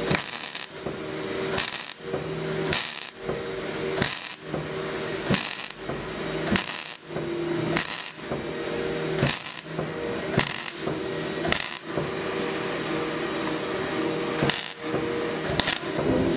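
MIG welder arc crackling in a run of short bursts roughly a second apart, with a longer pause toward the end, as a steel part is stitch-welded; a steady hum underlies the bursts.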